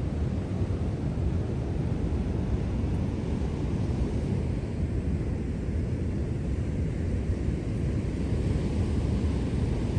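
Steady wind rumbling on the microphone, with a broad even wash of noise beneath it.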